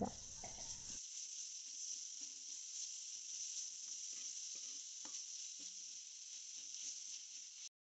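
Sliced onions, green chillies, crushed ginger, garlic and shallots sizzling faintly in coconut oil in a metal pan while a slotted metal spoon stirs them, with a few light scrapes of the spoon.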